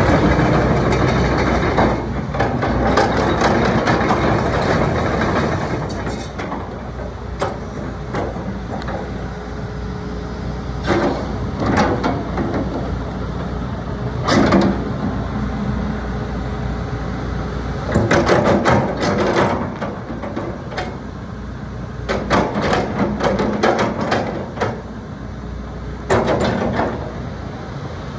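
Hitachi ZX200LC-3 20-ton excavator's diesel engine running steadily while the hydraulic boom, arm and bucket are worked. Repeated short bursts of knocking and louder hydraulic noise come as the arm and bucket move.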